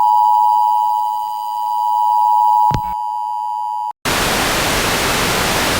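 A steady electronic tone on the broadcast feed, with one click near the three-second mark. About four seconds in it cuts off and loud white-noise static takes over: the satellite signal from London has been lost.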